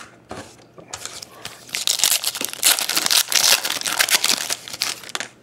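Foil wrapper of a 2011 Prestige football trading-card pack being torn open and crinkled by hand, a dense crackle from about two seconds in until shortly before the end. There is a single click right at the start.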